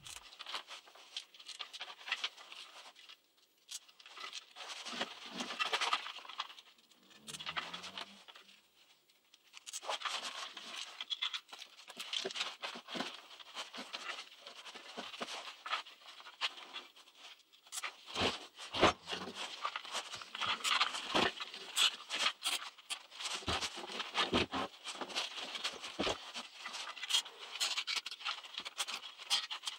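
Handling noise: rustling of a padded jacket and work gloves, with scraping and small clicks as wires and a plastic housing are handled on top of a car battery. A run of sharper knocks and clicks comes from a little past halfway.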